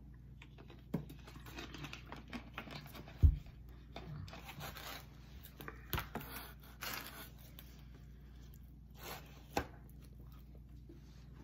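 Rustling and scraping as a cardboard pizza box is handled and a slice of pizza is pulled free, with one heavy thump about three seconds in and a few sharp clicks.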